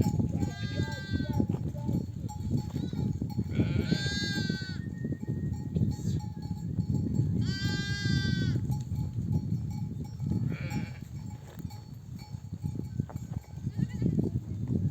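Sheep in a flock bleating: three loud, high-pitched drawn-out bleats about four seconds apart and a fainter one later, over a constant low, busy rumble from the flock.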